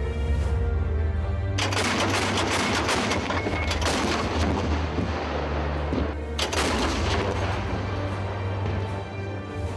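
Two long bursts of rapid automatic fire from a towed anti-aircraft cannon, each lasting several seconds with a brief gap between them, over background music.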